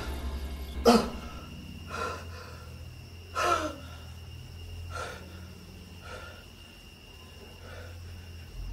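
A man gasps sharply about a second in, then breathes heavily, roughly one breath a second, with a second loud gasp a few seconds in; the breaths grow fainter. He is catching his breath in fright. A steady low hum runs underneath.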